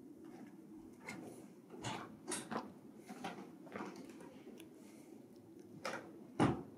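Brown paper bag crinkling in a string of short, sudden rustles as a kitten paws and pushes into it, the loudest rustle near the end.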